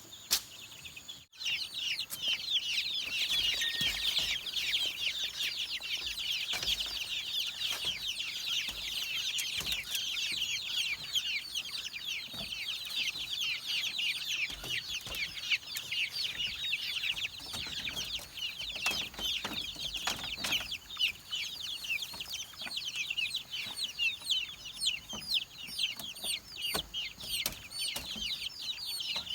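A brood of chicks peeping continuously, many short, high cheeps overlapping into a steady chatter, with a brief break about a second in.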